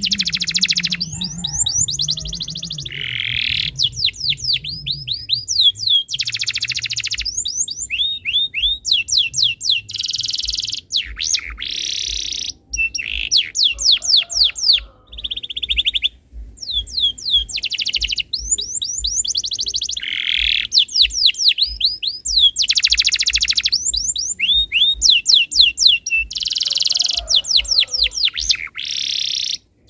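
Canary singing: fast runs of repeated downward-sweeping chirps alternating with dense buzzing rolls, phrase after phrase with brief pauses between them.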